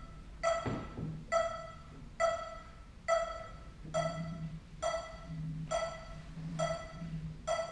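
KORG MA-1 electronic metronome beeping a steady pulse, nine beeps a little under a second apart, all at the same pitch, each ringing briefly after it sounds.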